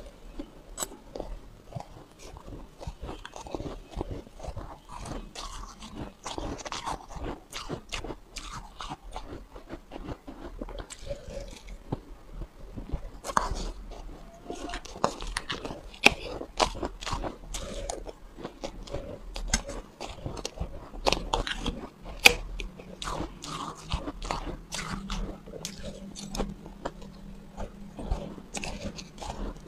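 Close-up chewing of soft, fluffy shaved ice: a continuous run of soft, irregular crunches, with a few louder snaps.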